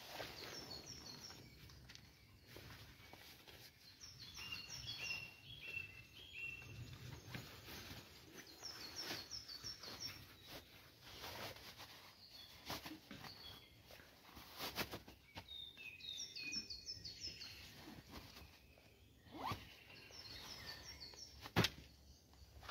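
Rustling and knocking of camping kit being rolled and stuffed into a bag on a plastic groundsheet, with a sharp click near the end. Songbirds sing in the background, one repeating a short song of quick descending notes several times.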